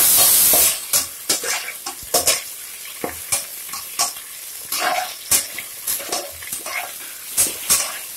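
Onions with ginger-garlic paste frying in hot ghee and oil in a pressure cooker: a loud burst of sizzling in the first second, then a fainter steady sizzle under repeated scrapes and knocks of a metal spatula against the pot as it is stirred.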